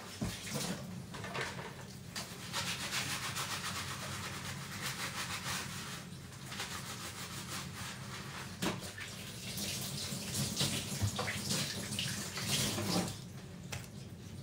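Kitchen tap running into a sink while dishes are washed by hand, with a few sharp knocks of dishware against the sink.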